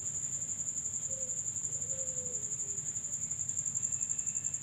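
Crickets trilling: one steady, high, rapidly pulsing note that does not let up.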